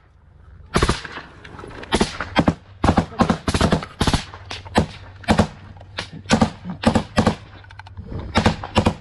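Close small-arms gunfire: a rapid, irregular string of loud shots, some in quick pairs and short bursts, starting about a second in after a brief lull.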